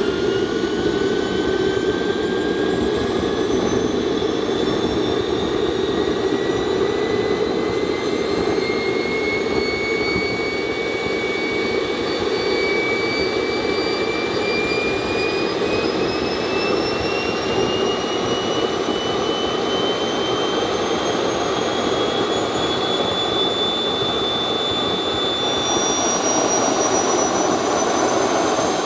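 Small turbine jet engine running on HydroDiesel (80% diesel, 20% water) in a thrust test: a steady roar with a turbine whine that climbs slowly in pitch. Near the end the whine changes suddenly and the sound gets slightly louder.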